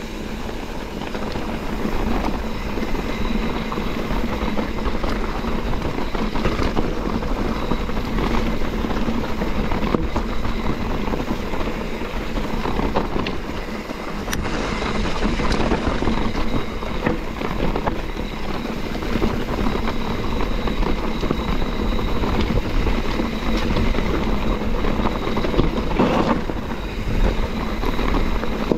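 Mountain bike rolling fast over a rocky dirt trail: tyres crunching on gravel and the bike rattling with many small knocks, with wind buffeting the microphone.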